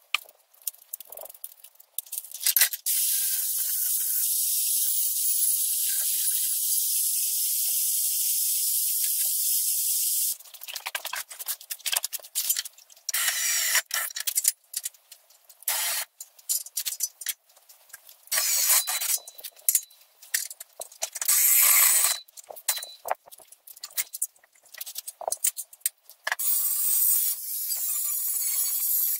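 An angle grinder runs steadily on sheet steel for about eight seconds. Then come short bursts from a cordless drill boring into the metal, mixed with clanks of metal. Near the end the angle grinder cuts through a steel strip with a steady whine.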